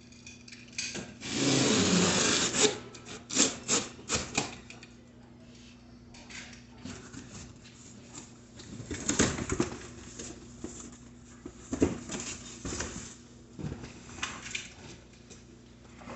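Hands working on a bike: rubbing, scraping and handling noises. A louder rasping sound of about a second and a half comes near the start, followed by scattered clicks and knocks over a faint steady hum.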